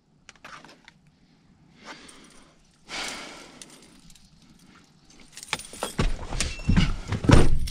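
Clatter, rustling and knocks of things being handled inside a vehicle cab, growing louder in the last couple of seconds, with a heavy thump near the end.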